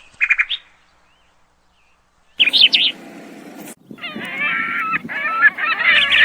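Birds chirping and calling in short, abruptly cut bursts, followed from about four seconds in by a dense chorus of many birds calling at once.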